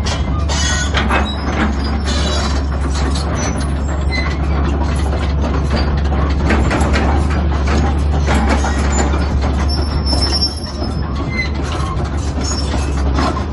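Caterpillar 320BL crawler excavator's six-cylinder diesel running steadily while the machine travels, its steel track chains clanking with a few brief high squeals.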